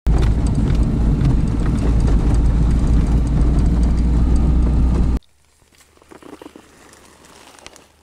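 Loud rumble inside a Škoda Felicia's cabin as it drives over rough grassy ground: engine and road noise with many small rattles and knocks from the bumps. About five seconds in it cuts off abruptly, leaving faint outdoor rustling.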